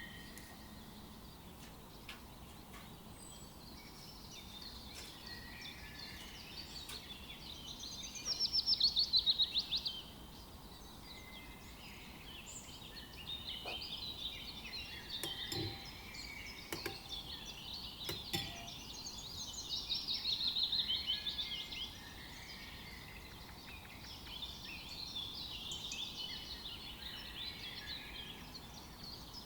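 Birds singing, with two louder trilled songs of fast repeated notes sliding downward, about eight and about twenty seconds in. A few faint knocks sound in between.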